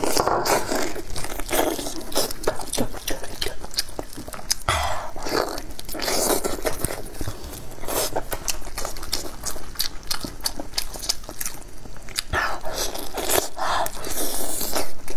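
Close-miked eating of a cooked lamb's head by hand: repeated biting and tearing of meat off the bone, with wet chewing and short crunches.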